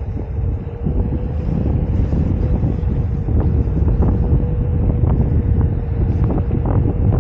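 Wind buffeting a helmet-mounted microphone while riding a Onewheel GT electric board, with the board's hub motor giving a steady whine under the rumble and a few light knocks from about three seconds in.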